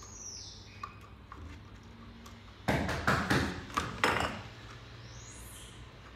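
A cluster of loud knocks and rattles, about three seconds in, lasting a little over a second: bottles and objects clattering on a wooden dressing table as a baby monkey scrambles among them. A faint short high chirp comes at the very start.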